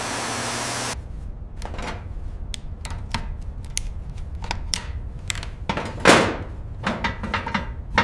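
Hand-tool work: a string of sharp clicks and taps over a low steady hum, with a short loud hiss about six seconds in. A steady hiss at the start cuts off about a second in.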